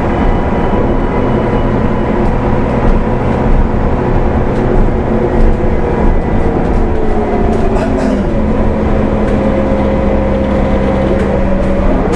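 A 2015 Gillig Low Floor transit bus's Cummins ISL9 diesel and Allison B400R automatic transmission running as the bus drives. The engine's pitch sinks for a couple of seconds around the middle, then climbs again near the end, with light ticks and rattles throughout.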